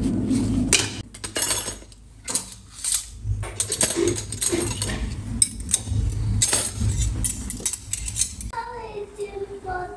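Metal serving spoons and ladles clinking and rattling against each other as they are dropped into a plastic cutlery holder, a quick run of clinks over several seconds. A voice starts near the end.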